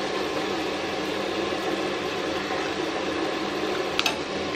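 Halved boiled eggs sizzling steadily in hot coconut oil in a frying pan, with one short click about four seconds in.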